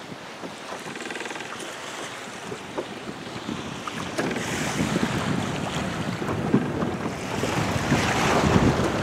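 Wind buffeting the microphone over the rush and slap of choppy water, growing louder from about halfway through.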